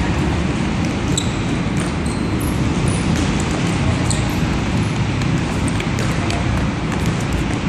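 Futsal balls being dribbled on an indoor court floor: scattered sharp ball touches and brief sneaker squeaks over a steady low rumble of gym noise.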